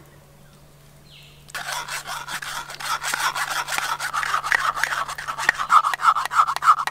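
Thick potato-and-sago batter being rubbed and scraped through a stainless steel mesh strainer: a quick, continuous rasping that starts about a second and a half in.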